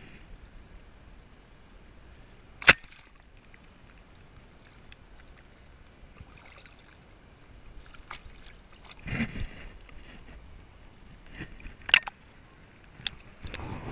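Shallow river water gently sloshing around hands releasing a trout, with a few sharp knocks. The loudest knock comes a little under three seconds in, and more follow near the end. A brief louder splash comes about nine seconds in.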